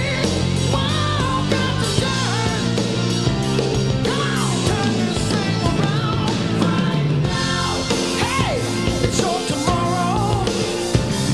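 Rock song with a sung vocal line over a steady band backing.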